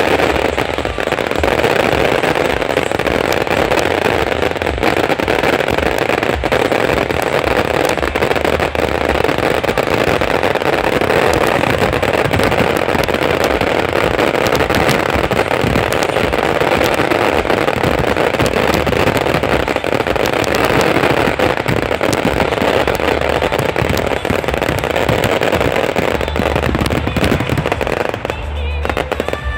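Fireworks finale: a dense, continuous barrage of exploding shells and crackling bursts going off in quick succession, easing off briefly near the end.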